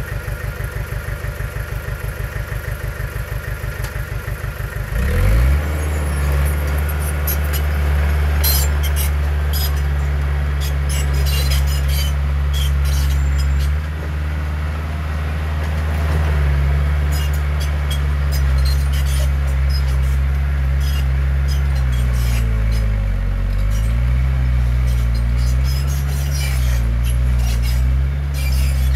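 Heavy diesel engine of earthmoving machinery idling with an even pulsing beat, then revving up about five seconds in and running hard under load, its pitch wavering later on. Metal clanks and rattles come through at intervals.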